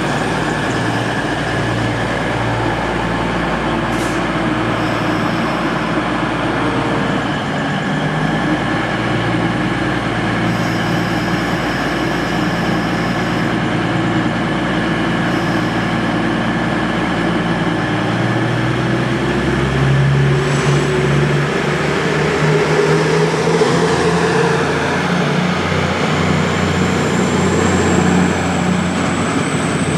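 EMR Intercity diesel multiple unit moving along the platform, its underfloor diesel engines running steadily. The engine note changes about two-thirds of the way through, and a thin rising whine comes in near the end.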